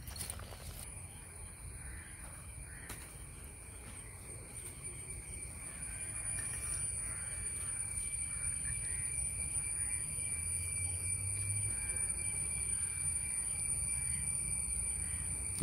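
Outdoor ambience: crows cawing over a steady high-pitched whine, with a low rumble from the handheld phone's microphone.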